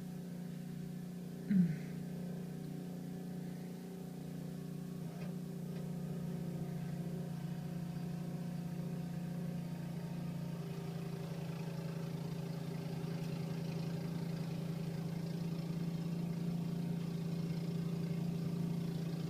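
Snowblower engine running at a steady pitch, growing somewhat louder after about ten seconds. A brief sharp sound cuts in about a second and a half in.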